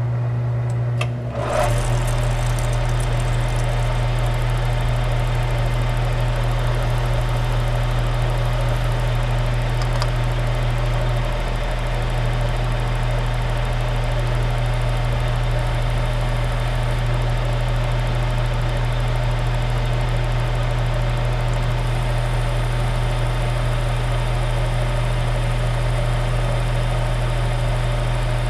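Metal lathe switched on about a second and a half in, after a few clicks, then running steadily with the chuck and aluminium workpiece spinning, over a constant low motor hum.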